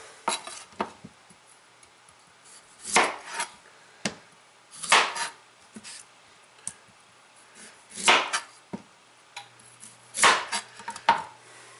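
Chef's knife cutting through raw beets and knocking down onto a plastic cutting board: a few sharp knocks a couple of seconds apart, with lighter taps and handling sounds between.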